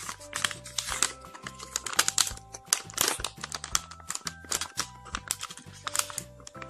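A foil blind-bag packet crinkling and crackling in the hands as it is gripped and pulled at to tear it open, a fast irregular run of sharp crackles, over background music.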